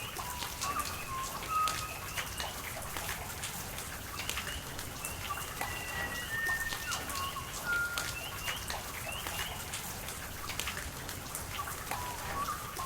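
Steady rain with close drops pattering, over running water, while birds call with many short whistled notes.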